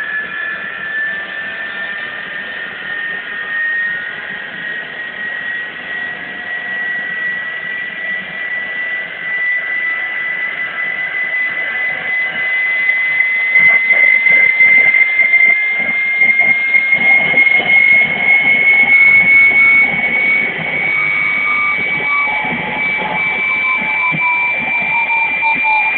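Homemade small gas turbine engine running, a high whine climbing slowly in pitch over a rushing roar. It gets louder about halfway through, and a second, lower tone falls away near the end.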